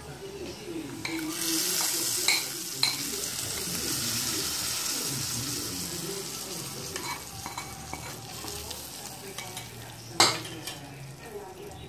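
Hot tempering of oil fried with mustard seeds, curry leaves, onion and chilli poured onto chickpea curry, sizzling for several seconds and then dying away. A few sharp clinks of a metal utensil against the dish, the loudest near the end.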